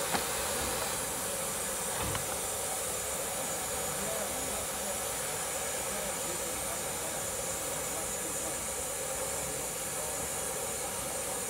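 Steady hiss of steam escaping from a narrow-gauge steam locomotive standing at the platform, with a faint knock about two seconds in.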